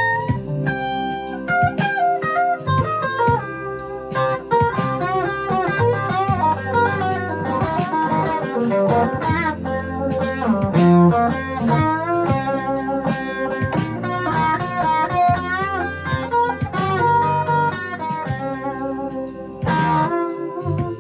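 Epiphone semi-hollow electric guitar played through an amplifier: a run of quick single-note lead lines with bent notes, over sustained low notes.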